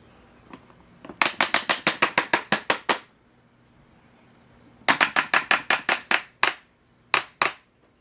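Lasko 3542 Cyclone 20-inch fan's tilt mechanism clicking through its detents as the fan head is tilted by hand: a rapid run of about a dozen sharp clicks, a second run of about nine, then two more near the end.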